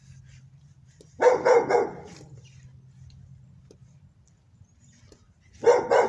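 Dog barking in two short bouts of a few quick barks each, about a second in and again near the end.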